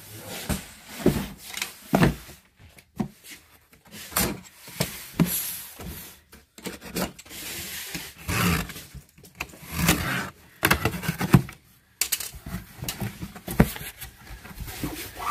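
A large cardboard shipping box handled and knocked down, with several thumps, then its packing tape slit with a box cutter in short scraping strokes and the cardboard flaps pulled open.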